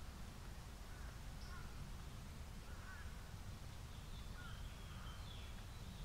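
Faint calls of wild birds: a few short calls scattered through, and a thin, higher call near the end, over a steady low rumble.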